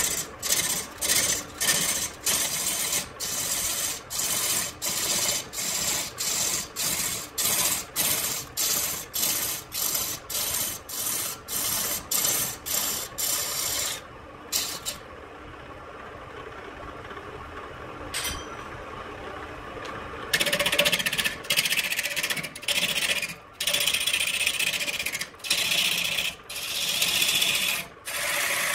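Electric wood lathe spinning a layered wood blank while a hand-held gouge cuts it: a harsh scraping hiss in quick pulses, about two a second. About halfway through, the cutting stops for some six seconds, leaving only the lathe running, then resumes in longer strokes.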